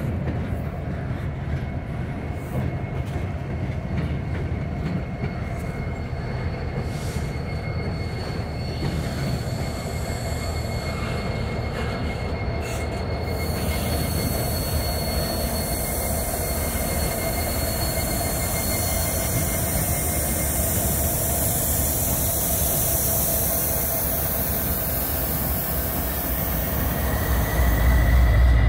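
Norfolk Southern double-stack intermodal train rolling past, its wheels squealing in a steady high tone over the rumble of the cars. Near the end the diesel locomotives come by and a deep engine rumble grows louder.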